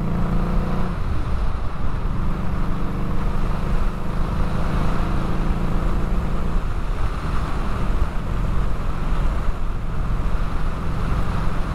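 Harley-Davidson Street 500's V-twin engine running under way, its note changing about a second in and again near seven seconds. Wind rushes steadily over the rider-mounted microphone.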